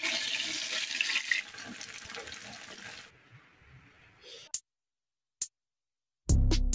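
Banana fritters frying in hot oil in a steel kadai, a loud sizzle that fades away over about three seconds. Then two short clicks, and near the end music with a drum beat starts.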